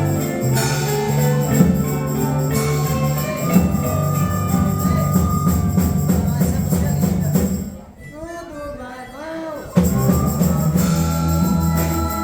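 Live band playing a song. About eight seconds in the music thins to a quiet passage of a few gliding notes, then the full band comes back in sharply about two seconds later.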